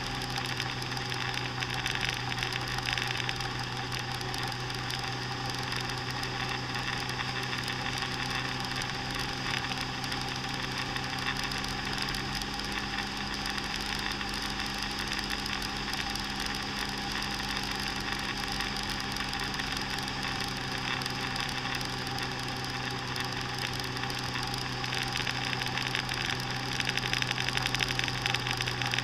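Motor scooter engine running steadily at cruising speed, a constant drone with wind and road noise over it.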